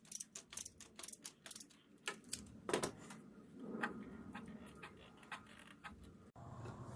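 Ratchet wrench clicking rapidly, about four to five clicks a second, as it turns the plastic oil filter housing cap loose, then a few slower clicks and some scraping of the tool on the cap.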